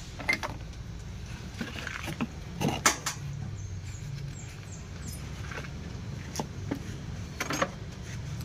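Scattered sharp clicks and knocks of hands at work, with the loudest knock about three seconds in, over a steady low hum.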